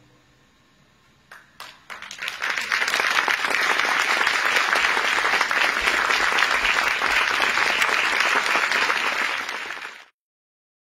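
Audience applause. After about a second of near-quiet room hum, a few first claps come in, then full, dense applause builds and cuts off suddenly near the end.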